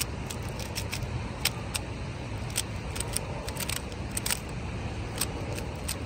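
Plastic Rubik's cube being turned quickly during a solve, its layers clicking in irregular runs of a few sharp clicks a second. Behind them is a steady rushing of the river.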